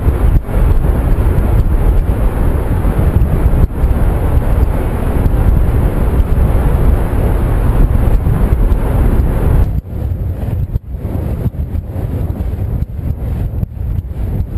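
Loud wind noise buffeting the microphone of a weather-balloon payload camera as the payload descends through the air, a steady rushing rumble. About ten seconds in it turns gustier and choppier, with brief dropouts.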